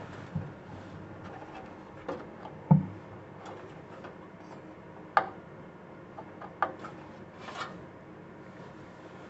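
Scattered light clicks and knocks from hands handling desktop PC parts while RAM modules are fitted, with one duller thud about three seconds in.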